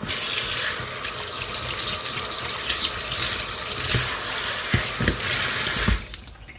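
Kitchen faucet running into a sink while kampyo (dried gourd strips) are rinsed under it, a steady rush of water with a few soft knocks, until the tap is shut off abruptly near the end.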